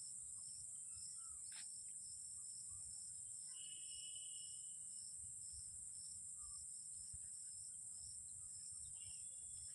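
Faint background of crickets chirping: a steady high trill with a fainter, evenly pulsed chirp beneath it, over low room rumble.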